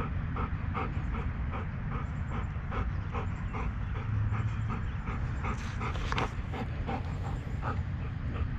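Golden retriever panting rapidly, about three to four pants a second, over a steady low rumble.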